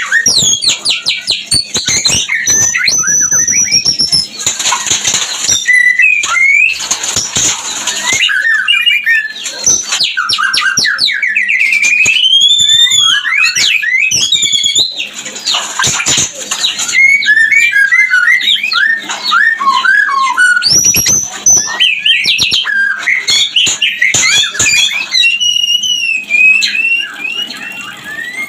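White-rumped shama singing a fast, continuous, varied song of clear whistles, rapid trills and gliding notes broken by harsh rasping calls. It is the excited mating song of a shama in breeding condition.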